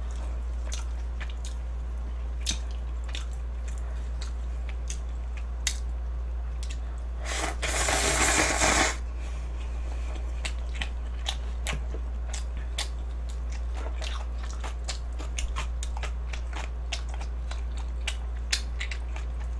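Close-miked eating of spicy cup noodles with chopsticks: many small chewing and mouth clicks, and one loud slurp of noodles lasting about a second and a half around the middle. A steady low hum runs underneath.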